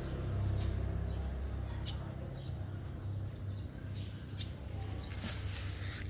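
Small birds chirping in short high calls scattered through the clip, over a steady low rumble. A brief rustling burst comes about five seconds in.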